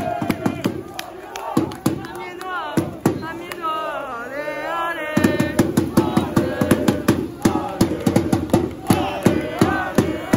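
Crowd of football supporters chanting and shouting, with a dense run of sharp cracks and bangs that comes thickest and most regular from about halfway in.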